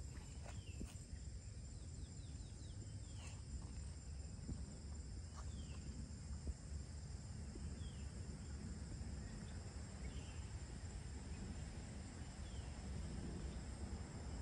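Forest ambience: insects keep up a steady high-pitched drone over a low rumble, while a bird gives short downward-sliding chirps every two seconds or so.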